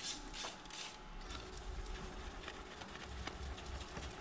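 A WD-40 aerosol can spraying in three short hisses within the first second onto a sanded carbon-fibre exhaust heat shield, then a microfibre cloth rubbing and wiping over the carbon surface to degrease it.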